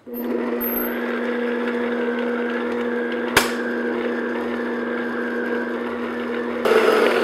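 Electric stand mixer running steadily, its paddle beating butter and powdered sugar into frosting: a constant motor hum with one sharp click a little past halfway, growing louder near the end.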